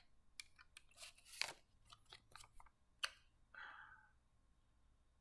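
Faint scattered clicks and crinkles as a plastic toy alarm clock and its packaging are handled, with a short soft rustle about three and a half seconds in.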